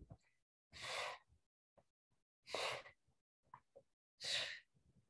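A person breathing out three times while exercising, evenly spaced about every second and a half, each breath a short hiss with silence between.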